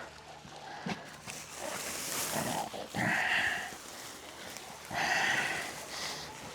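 Goats and sheep bleating, two hoarse calls about two seconds apart, with a dry rustle of hay about two seconds in.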